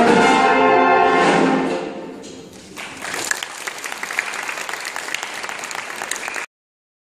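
Brass band of cornets, horns, euphoniums, tuba and trombones holding a final chord that fades out about two seconds in, followed by audience applause that stops abruptly when the recording cuts off.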